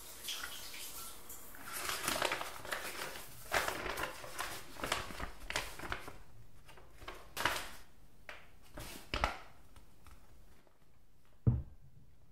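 Paper wrapping rustling and crinkling as it is pulled off a wine bottle and handled, in a small tiled room. A single dull thump near the end.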